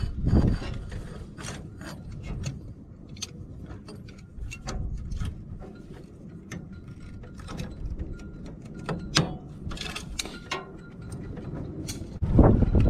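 Irregular metallic clicks and clinks of pliers and an adjustable wrench turning a nut on a spring-loaded threaded rod, tightening a machine's linkage.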